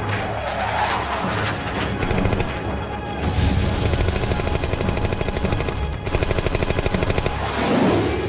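Machine-gun fire in long, rapid bursts of evenly spaced shots, over music. Near the end a jet fighter passes with a sweeping whoosh.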